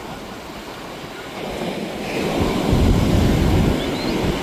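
Surf washing onto the beach, swelling to its loudest about two and a half seconds in and then easing.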